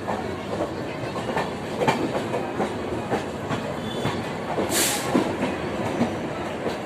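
Coaches of the Vikramshila Superfast Express rolling in on arrival, their wheels clicking over the rail joints, with a short hiss about five seconds in.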